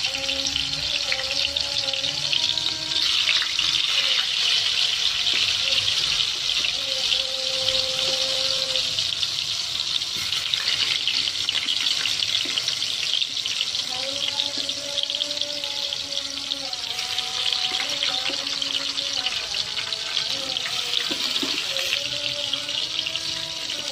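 Tempe slices deep-frying in a lot of oil in a wok, sizzling and crackling steadily. A distant chanted call to prayer is heard faintly underneath.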